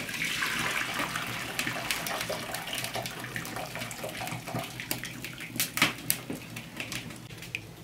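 Hot cooking water poured from a cast-iron pot through a wooden-rimmed sieve holding boiled cauliflower into a bowl: a steady splashing stream that starts at once and slowly tapers off. Sharp pops and crackles from the open wood fire come through it, the loudest a little before the end.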